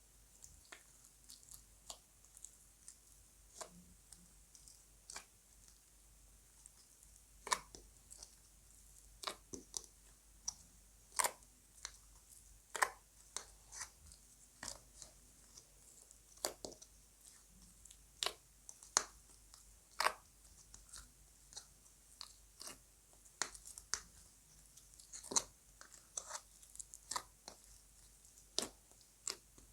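Slime being kneaded and mixed by hand, giving short sharp pops and crackles at irregular intervals, roughly one or two a second.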